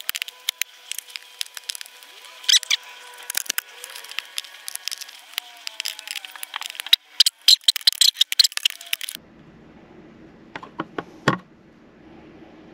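Hand-held pliers clicking and snapping against a hard clear plastic tray as the pop-rivet feet are cut off its underside: a quick run of sharp clicks and cracks, loudest around seven to eight seconds in. About nine seconds in the sound changes suddenly to a low steady hum, with a few more clicks after it.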